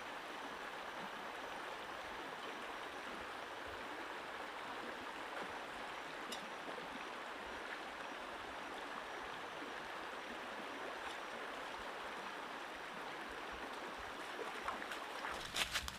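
Steady rush of water from a flowing jungle stream, with a cluster of knocks and rustles near the end.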